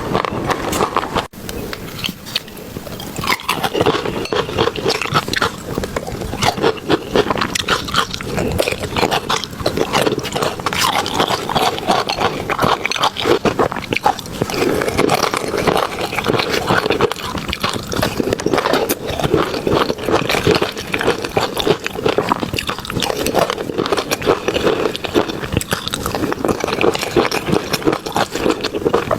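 A person eating close to the microphone: continuous chewing and mouth sounds, dense and irregular.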